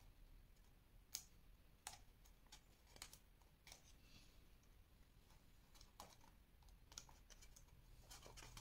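Faint, scattered ticks and crackles of stiff white paper being pressed and smoothed by fingers as a glued lining is seated inside a round paper box; about eight separate clicks over several seconds.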